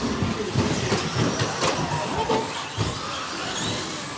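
Electric RC stadium trucks racing on a carpet track: the whine of 21.5-turn brushless motors rising and falling with tyre noise, and a few sharp clacks about one to one and a half seconds in.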